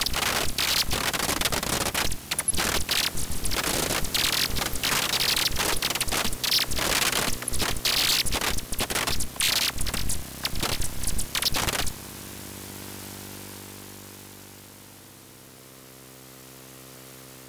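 Dense, harsh static-like crackling and scraping noise that cuts off abruptly about twelve seconds in. A soft, steady low drone follows and slowly fades.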